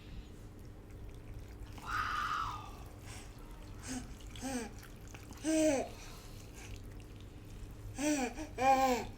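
A person's voice making short wordless sounds, four brief syllables that rise and fall in pitch, the last two close together near the end. A short hissing rush comes about two seconds in.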